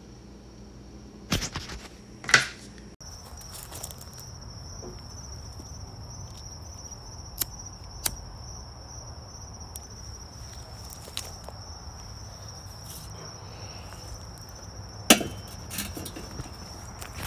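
Crickets trilling in one steady high note, starting about three seconds in. Over it come scattered clicks and knocks from a charcoal chimney starter and grill being handled; the loudest is a sharp knock near the end, and two knocks come in the first few seconds.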